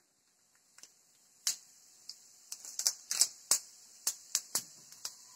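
Mustard seeds and urad dal crackling in hot oil in a nonstick frying pan during tempering. Irregular sharp pops start about a second and a half in and come thickest around the middle.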